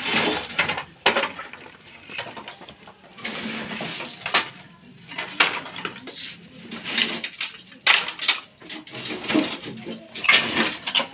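Planks and scrap being shifted by hand in a cluttered pile: irregular knocks, clatters and scrapes of wood and loose objects knocking together.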